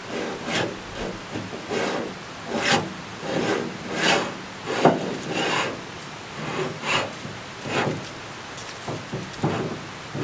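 The vise lever handle on a Do-All bandsaw being worked back and forth, a dozen or so short scraping metal strokes at about one every three-quarters of a second.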